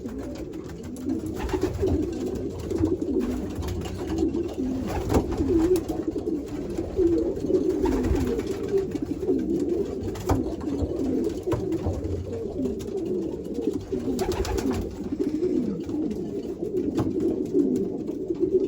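Many racing-pigeon cocks cooing at once, an unbroken overlapping chorus. A few short sharp noises cut through it. The birds are in breeding condition and contesting their nest boxes.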